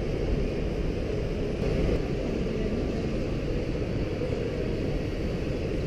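Steady low rumble of exhibition-hall background noise, with no distinct event standing out.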